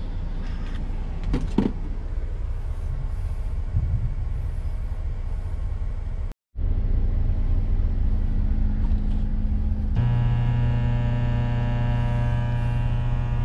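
Low steady rumble of a Volvo truck's idling diesel engine, broken by a brief cut about six seconds in. About ten seconds in, a small dial-type microwave oven switches on and adds a loud, steady electrical hum.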